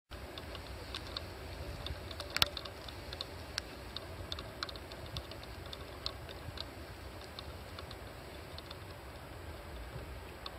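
Steamboat Geyser's low, steady rumble, with irregular sharp ticks and clicks over it and one louder click about two and a half seconds in.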